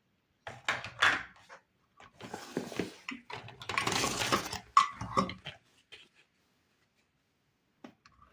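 Small plastic toy kitchen pieces and packaging being handled, clattering and rustling in irregular bursts for about five seconds, then a couple of faint clicks near the end.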